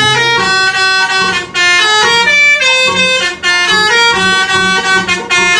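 Background music: a bright, reedy melody of quick changing notes over a regular low beat.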